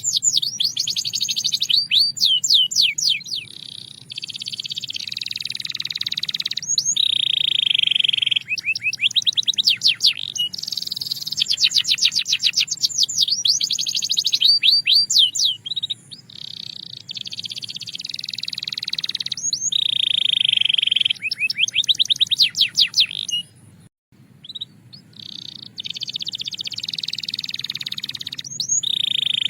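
Belgian canary singing continuously: fast rolls of rapidly repeated notes alternate with long, steady held tones, with a brief pause about three quarters of the way through.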